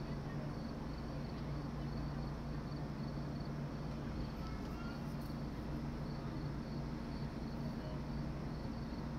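A cricket chirping steadily, short high chirps about twice a second, over a steady low hum.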